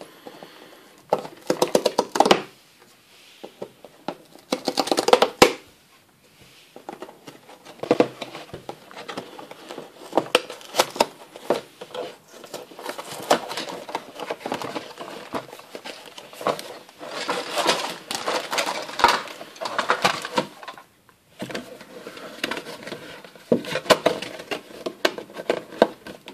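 Unboxing handling noise: a cardboard toy box being opened and its flaps bent back, plastic bags rustling, and hard plastic toy parts clicking and knocking, in irregular bursts.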